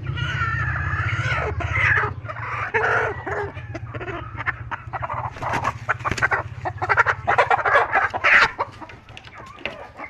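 Native chickens clucking and squawking, with a drawn-out call in the first second and a half followed by many short, sharp clucks. A steady low hum runs underneath and fades out near the end.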